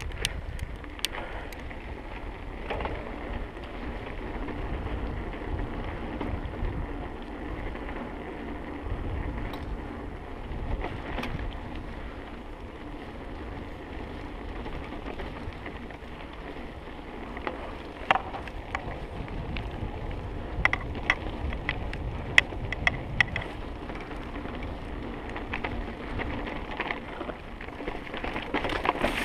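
Trek Remedy 8 mountain bike rolling over a dirt and gravel track: a steady rush of tyre noise and wind buffeting the microphone, with sharp clicks and rattles as the bike goes over stones, most of them in the second half.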